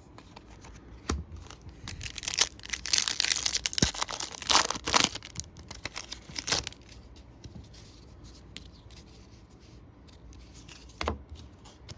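Baseball card pack wrapper being torn open: a dense tearing and crinkling stretch in the middle, then a few separate short crinkles.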